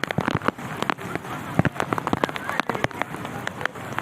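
Heavy rain falling, with many large drops striking a hard surface close by as dense, irregular sharp taps over a steady hiss.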